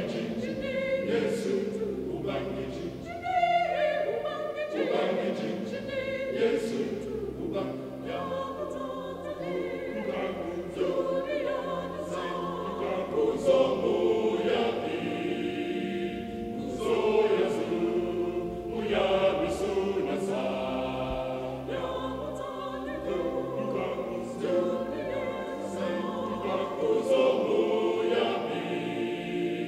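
Mixed choir of men's and women's voices singing a Christian song in Hausa in full harmony.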